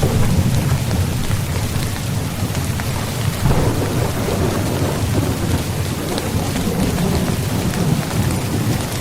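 Steady heavy rain with a low rolling rumble of thunder underneath, the rumble swelling about three and a half seconds in.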